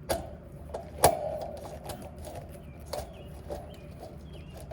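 Hand tools clicking and knocking on metal while an air conditioner's contactor is being unscrewed: about five sharp taps with a short metallic ring, the loudest about a second in, over a steady low hum.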